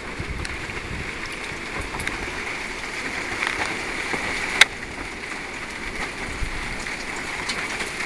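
Steady rain falling, with wind gusts rumbling on the microphone. A single sharp click about four and a half seconds in.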